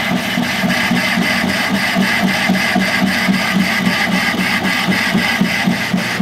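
Metal lathe running with a boring bar cutting the bore of a cast valve body. The machining noise is steady and pulses rhythmically about six times a second.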